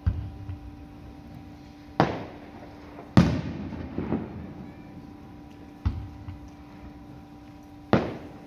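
Aerial fireworks shells bursting: five sharp bangs a second or two apart, each trailing off in a fading rumble, the third, about three seconds in, the loudest.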